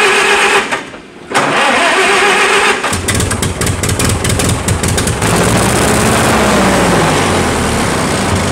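Farmall 300 Utility tractor engine cranked by its starter, stopping briefly, then cranked again, with the choke off. It catches about three seconds in and keeps running, the revs rising and falling once before it settles.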